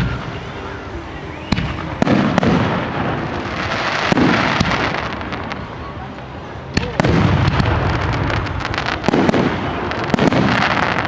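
Aerial fireworks bursting: sharp bangs, often two close together, every second or two, each trailing off in a long rumbling echo.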